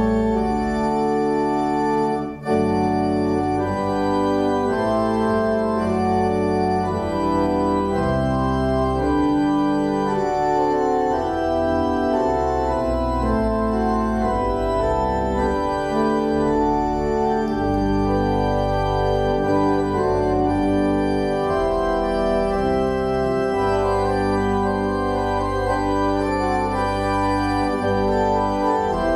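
Church organ playing slow sustained chords over a deep pedal bass, the chords changing every second or so. There is a momentary break in the sound about two seconds in.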